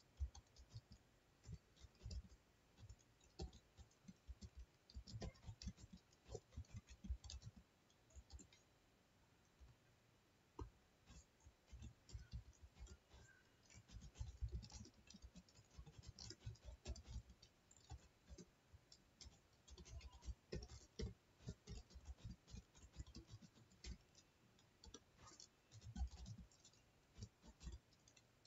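Faint computer keyboard typing: irregular runs of keystrokes, with a short pause about eight seconds in.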